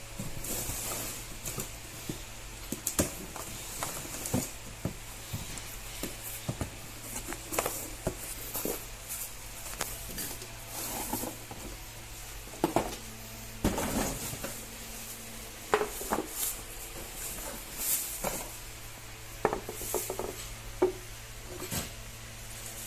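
Unboxing sounds: a pedestal fan's base and parts being handled and taken out of their packaging, with irregular knocks, clinks and rustles of cardboard and plastic. A faint steady hum sits underneath.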